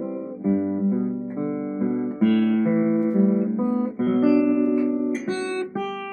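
Acoustic guitar being played: a line of picked notes over chords, changing about twice a second.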